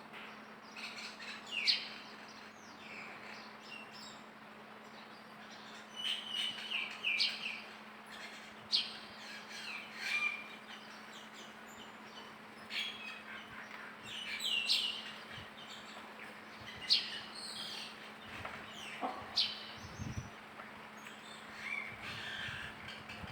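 Short, high-pitched animal chirps and squeaks, many falling in pitch, coming every second or two over a faint steady hum.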